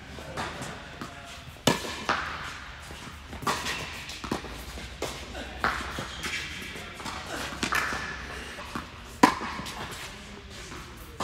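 Tennis ball hit back and forth by racquets in a doubles rally, a string of sharp pops and bounces roughly every one to two seconds, the loudest a little past nine seconds in. The hits echo in a large indoor tennis hall.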